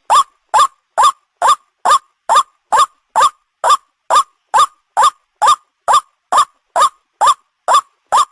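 White-breasted waterhen (ruak-ruak) lure-call recording: one short rising call repeated at an even pace, a little over twice a second, loud throughout.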